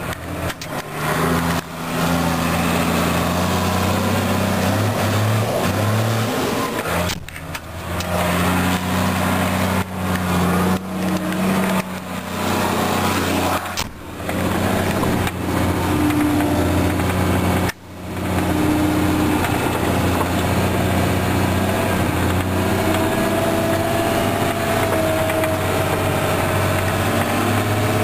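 Trail groomer's engine running steadily, heard from inside the cab, as the machine works along a rough, bumpy snowmobile trail. The sound drops out briefly three times.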